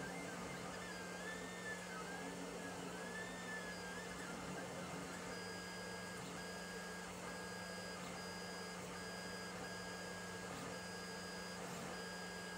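Lulzbot TAZ 5 3D printer running a print, its stepper motors whining as the tool head moves: the pitch wavers up and down for the first few seconds, then breaks into a string of short steady-pitched tones with brief gaps, over a steady low hum.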